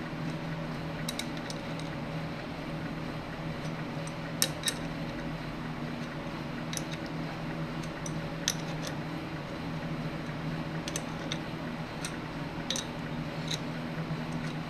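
Tap wrench being turned by hand to cut a quarter-inch NPT thread into a model engine crankcase: irregular light metallic clicks and ticks as the wrench is worked and repositioned, over a steady low hum.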